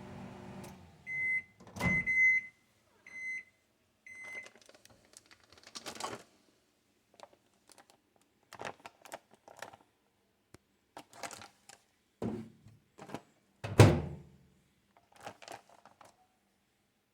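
Microwave oven's running hum stops, then it beeps four times at one pitch to signal that the heating cycle is done. This is followed by a thunk and scattered handling noises: rustles, taps and one loud knock near the end.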